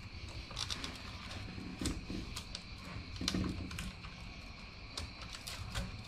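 Saw chain links clicking and rattling against the guide bar as a chain is worked into the bar groove by hand. The clicks are light and irregular, a few louder ones standing out about two and three seconds in.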